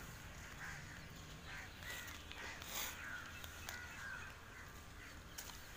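Faint bird calls, short and repeated every second or so, over low steady background noise.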